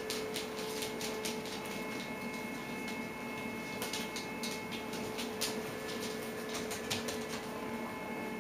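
Dogs' claws clicking irregularly on a vinyl floor as an adult dog and puppies run about, over a steady background hum.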